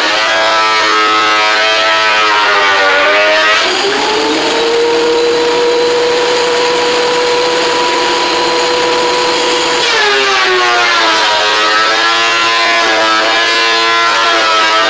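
Woodworking power tool running loud, its motor pitch dropping as a board feeds in, holding steady through the cut for about six seconds, then climbing back up as the load comes off.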